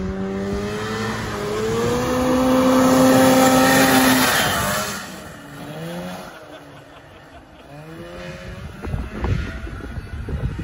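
Snowmobile-engine-powered homemade dune buggy under throttle, its engine pitch climbing and holding high, loudest about three to four seconds in. The engine then drops back and turns quieter with a wavering pitch, and revs up again near the end.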